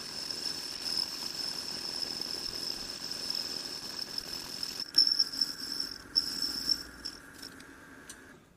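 Metal lathe running with a steady high whine over a hum. About five seconds in, irregular scraping and clatter of metal work come in, and the sound then fades and cuts off near the end.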